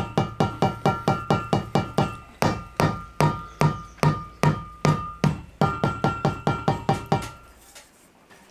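Hammer tapping the wooden formwork of a freshly poured concrete lintel to bring trapped air bubbles to the surface. The taps come quickly and evenly, about five a second, slow to two or three a second midway, pick up again, and stop about seven seconds in. Each tap has a short ringing note.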